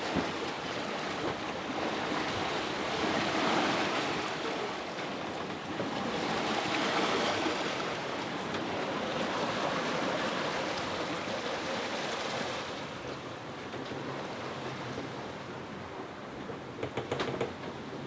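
Sea water rushing and washing along a sailboat's hull under way, swelling and easing in surges a few seconds apart. It quietens somewhat in the last few seconds, with a few light knocks near the end.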